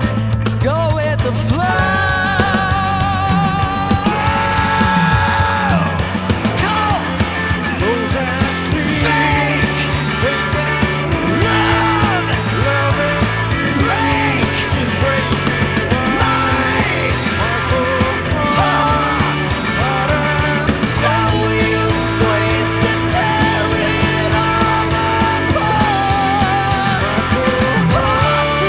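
Live rock band playing an original song, mixing rock with blues, jazz and funk: steady bass under a lead line whose notes bend and waver.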